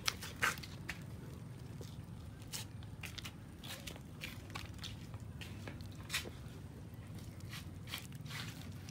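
Several kittens chewing and tearing at a cooked chicken carcass: irregular wet crunching and clicking bites, with the sharpest snaps near the start and about six seconds in, over a steady low background rumble.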